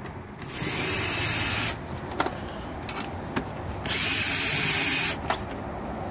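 Power drill/driver running in two bursts of about a second each, removing the bolts that hold the gauge cluster in the dash, with a few light clicks between the bursts.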